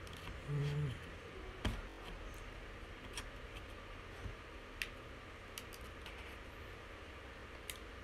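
Faint, scattered clicks and taps from fingers handling the parts of an opened laptop, its logic board and casing. The sharpest click comes a little under two seconds in; lighter ticks follow every second or two.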